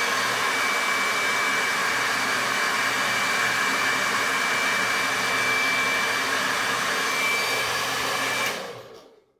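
Handheld hair dryer running steadily: a rush of air with a thin steady whine over it. It winds down and switches off near the end.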